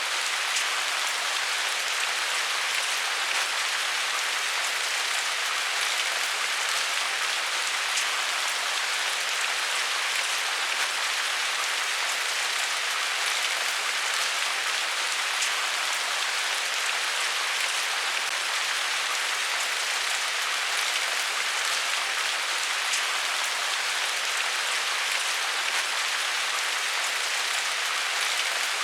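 Steady rain falling, an even hiss of drops on a surface with no thunder or other events.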